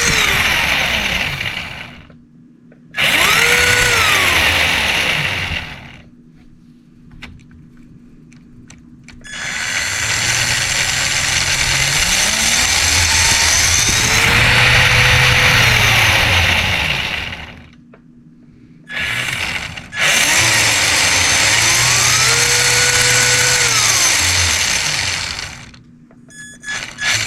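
Traxxas RC truck's electric motor and gears running under throttle with no load, in about four long runs. Each run has a whine that rises in pitch, holds, then falls away. Between runs there are quiet gaps.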